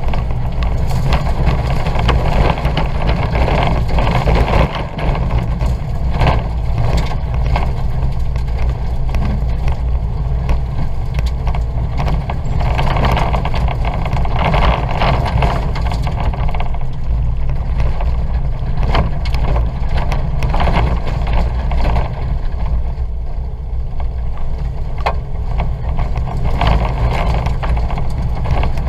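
Ford Fiesta 1.2's engine running hard under racing load, heard from inside the cabin, over a heavy rumble of the car on rough dirt. Frequent sharp clatters run through it.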